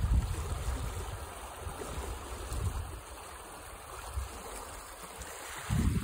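Fast, foaming stream rushing down a gully, a steady hiss of running water. Wind buffets the microphone in a low rumble during the first second or so and again near the end.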